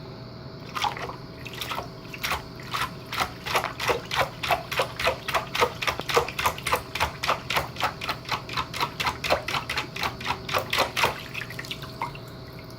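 Rinse water splashing on a plastic model-kit runner being washed: a quick, even rhythm of about three or four splashy strokes a second, starting about a second in and stopping near the end.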